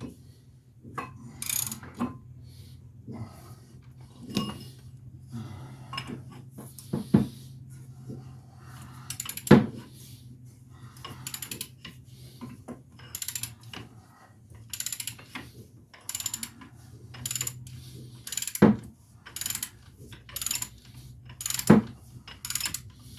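Hand ratchet clicking in short, irregular strokes with metal tool clinks, working a Loctite-treated bolt loose, over a steady low hum.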